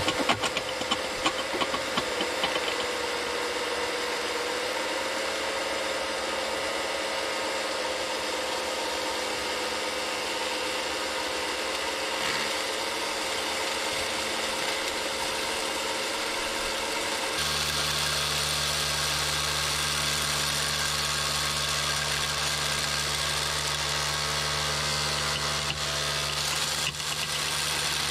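Steady whine of an RC scale hydraulic excavator's electric pump and motors, with stones clattering in the first few seconds. About two-thirds of the way through, a lower steady hum sets in.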